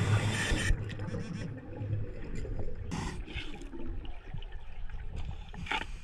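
Scuba diver breathing through a regulator underwater: short hissing inhalations at the start, about three seconds in and just before the end, with a low rumble of exhaled bubbles.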